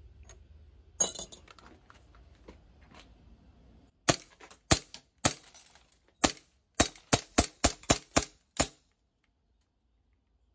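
A green-gas blowback airsoft pistol (Glock 19X replica) firing about a dozen sharp shots, slowly at first and then faster, until the magazine runs empty and the slide locks back. A single sharp click comes about a second in, before the string.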